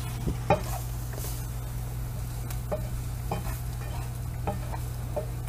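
Wooden spoon stirring and scraping diced vegetables and rice flour around a hot nonstick frying pan, the mix sizzling, in irregular short scrapes with a sharper knock about half a second in, over a steady low hum. The flour is being cooked out to lose its raw taste.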